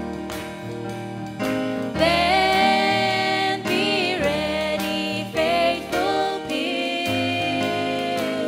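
Two women singing a gospel song into microphones over instrumental accompaniment. The voices come in about two seconds in, after a short stretch of accompaniment alone.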